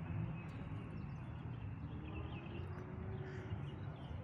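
Outdoor garden ambience: a steady low rumble with a few faint, scattered bird chirps.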